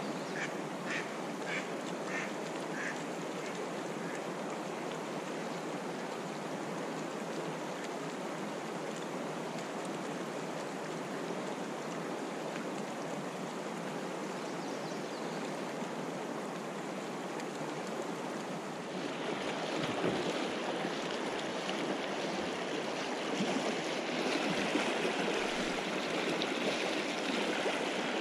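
Fast river current rushing over shallow riffles and logs, steady throughout and growing louder and hissier about two-thirds of the way through. A quick run of short calls, about two a second, sounds over the water in the first three seconds.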